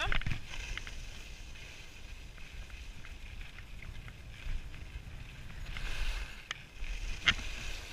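Skis sliding and scraping over groomed snow, with a low wind rumble on the microphone. The scraping swells about six seconds in, and two sharp clicks come near the end.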